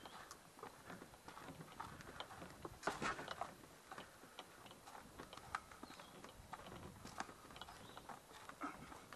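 Faint footsteps on a portage trail, with irregular light clicks and knocks and a louder clatter about three seconds in.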